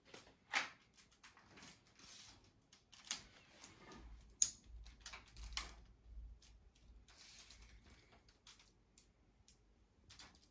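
Lego plastic parts of a brick-built model machine gun clicking and rattling as it is handled, with irregular light clicks and a few sharper snaps, the loudest about four and a half seconds in.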